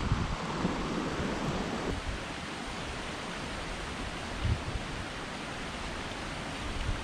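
Steady outdoor rushing noise, fuller for about the first two seconds, then a thinner, even hiss.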